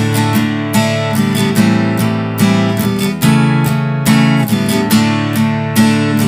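HEX Sting F300CE G acoustic guitar, a solid Sitka spruce top over sapele back and sides, strumming chords at a steady pace, about two to three strums a second, moving through a chord progression.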